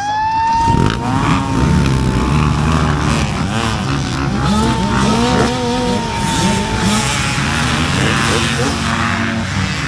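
Dirt bike engines revving hard and accelerating, several pitches rising and falling together, over a high whine that sweeps up sharply at the start and holds for several seconds.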